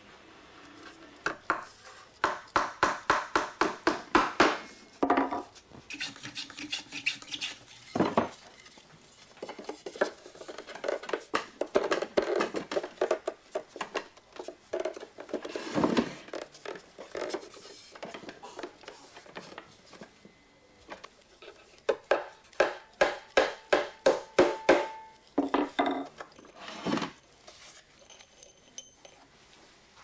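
Small hammer driving nails through thin wooden roof boards into the rafters, in three runs of quick light taps, about five a second, with a few heavier single knocks between.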